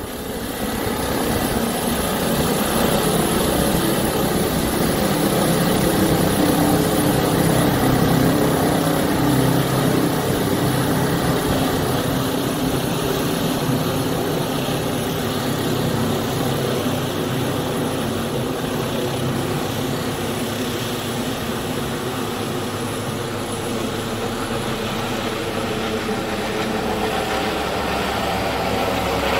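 Airbus H145 five-blade rescue helicopter climbing away overhead after takeoff, its rotor and twin turboshaft engines making a dense, steady sound.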